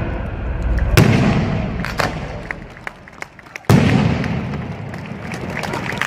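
Fireworks going off: a sharp bang about a second in, scattered crackles and pops, then a heavy boom a little past halfway whose rumble fades away.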